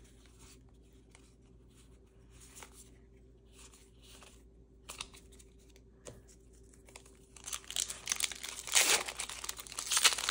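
Yu-Gi-Oh booster pack wrapper crinkling and being torn open. Soft scattered rustles come first, then louder crinkling through the last few seconds.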